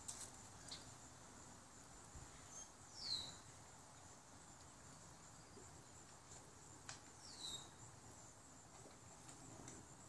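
A faint, steady, high-pitched insect drone, with a bird giving a short descending call twice, about four seconds apart, and a few faint clicks.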